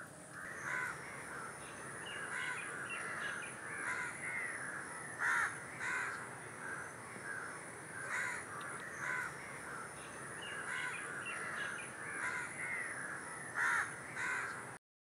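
Crows cawing repeatedly outdoors, call after call with a few louder ones, over a steady faint high tone; everything stops abruptly just before the end.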